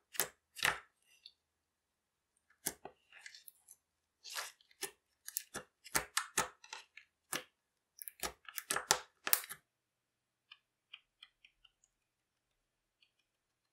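Fingers pressing and poking glossy green slime, giving irregular sticky clicks and pops in clusters. Near the end, only a few faint light ticks, as the marker tip dabs on clear slime.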